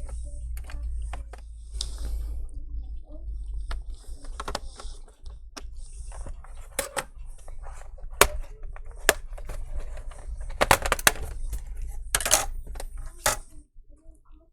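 Irregular sharp clicks and taps of small screws, a screwdriver and the plastic bottom cover of a laptop being handled during reassembly, with several louder clacks in the second half. A screw is not going in.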